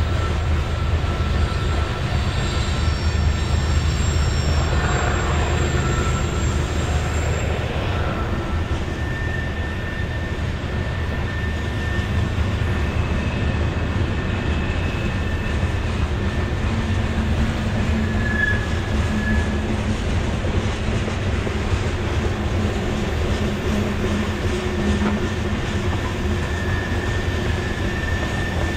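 BNSF freight train's tank cars and covered hoppers rolling past: a steady low rumble of wheels on rail, with thin high wheel squeals that come and go as the cars take the curve.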